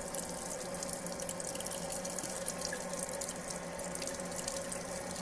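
Kitchen faucet running a steady thin stream of water over hands and a hard-boiled egg into a stainless steel sink, as the egg is peeled under cold running water.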